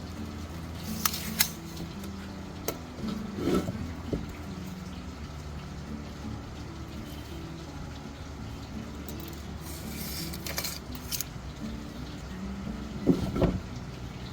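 Background music with a low melody stepping from note to note. Sharp clicks and clinks come about a second in, around three and a half seconds, again around ten seconds, and in a loud pair near the end.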